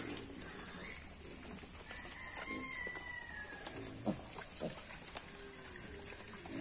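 Piglets grunting as they root and graze in wet grass, in short low bursts. A drawn-out, slowly falling call sounds in the background about two seconds in, and a brief loud sound comes about four seconds in.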